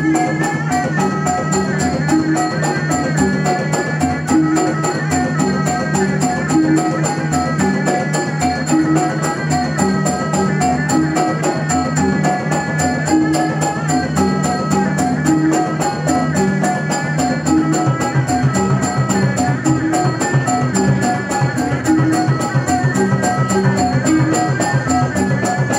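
Traditional Malay wayang kulit ensemble playing an instrumental piece: fast, even percussion under a melody line, with the low drum pattern changing about two-thirds of the way through.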